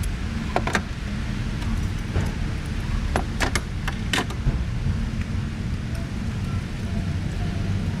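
Small metal tool bits and sockets clinking as they are handled, a scattering of sharp clicks in the first half, over a steady low rumble.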